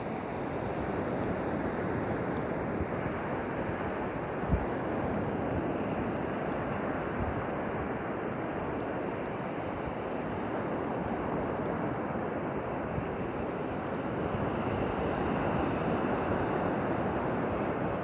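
Sea surf: a steady rush of waves that swells and eases slowly, with one brief low thump about four and a half seconds in.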